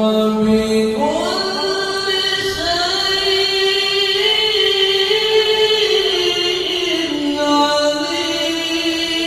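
A qari's melodious Quran recitation: one voice chanting in long held notes, climbing in pitch about a second in and then sliding slowly between notes without a break.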